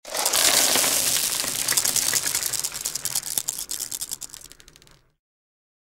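Slide-show sound effect: a loud, dense clatter of rapid clicks that thins into scattered clicks and fades out, ending about five seconds in.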